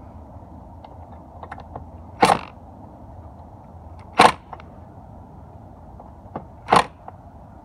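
Impact drill driving a screw home in three short bursts about two seconds apart, with a few light clicks in between. The screw is being run snug into the door latch's frame bracket.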